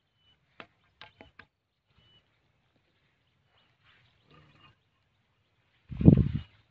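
Mostly quiet outdoors, with a few soft clicks in the first second and a half and brief faint bird chirps. About six seconds in comes a loud, low rustling rumble.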